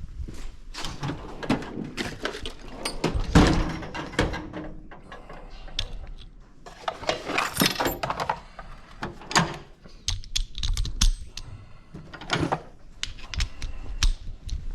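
Irregular clinks, knocks and rattles of metal tools and parts being handled, with a louder knock about three and a half seconds in.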